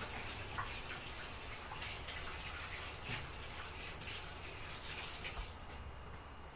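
Kitchen tap running into the sink while something is rinsed under the stream, with a few light knocks; the running water stops near the end.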